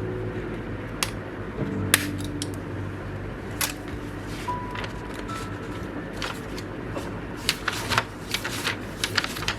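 Irregular light clicks and taps, coming faster in the last couple of seconds, over soft background music.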